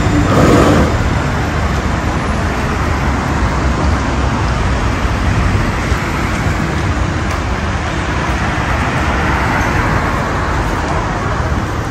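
Steady city street traffic noise. The rumble of a passing tram drops away in the first second.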